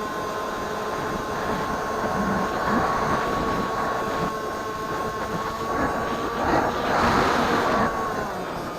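Firebird Stratos RC plane's electric motor whining at a steady pitch, heard through a keychain camera mounted on the plane, with wind rushing past that swells about three seconds in and more strongly between six and eight seconds.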